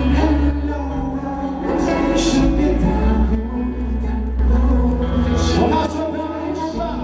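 Live pop-concert music over an arena sound system: a steady, heavy bass under sustained chords, with some singing.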